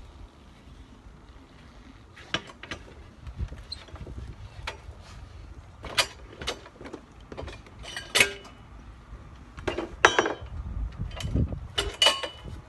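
Scattered metallic clinks and clanks of hand tools on a wheel and tire during tire work, sharp single strikes a second or so apart with short quiet gaps, busiest near the end.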